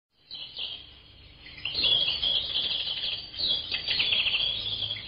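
Small birds chirping and twittering, starting about a quarter second in and getting busier after about a second and a half.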